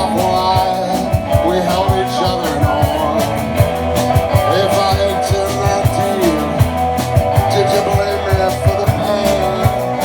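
A rock band playing live, with guitar over a steady drum beat.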